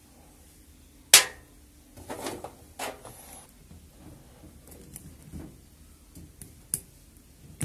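Handling of small hand tools: one sharp click a little over a second in, then softer scrapes and small clicks as side cutters are worked at the red battery lead by its old T connector.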